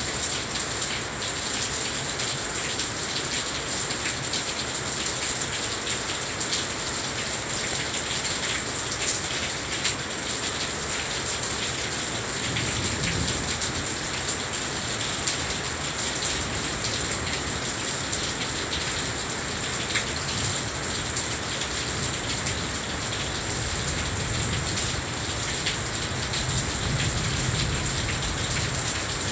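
Heavy rain falling steadily, a constant hiss with many separate drop hits on nearby surfaces.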